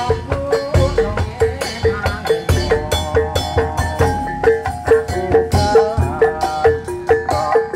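Live gajah-gajahan procession music: a small hand-held pot gong is struck in a quick, steady repeating pattern over deep beats on a large drum, with a wavering melody line on top.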